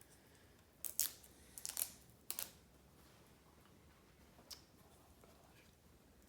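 Adhesive Velcro mounting strip and plastic sensor being handled: a few short, sharp crackles and clicks, three close together in the first couple of seconds and one more about four and a half seconds in.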